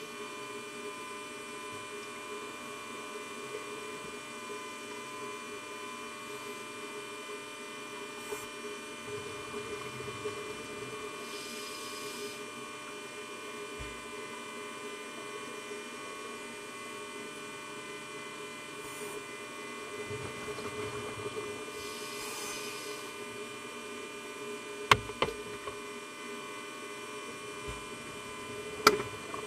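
A steady electric hum with a high whine made of many fixed tones, like a small motor running, heard underwater. Two short bursts of rushing hiss come about ten seconds apart, and two sharp knocks stand out near the end.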